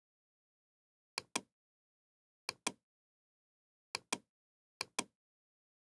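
Computer mouse button clicking in pairs, four quick click-clacks in all, with silence between.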